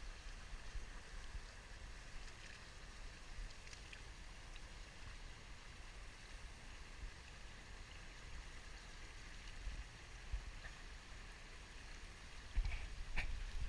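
Pool water lapping faintly at the waterline, with light sloshing and a low rumble. A few sharper splashes and knocks come about a second before the end.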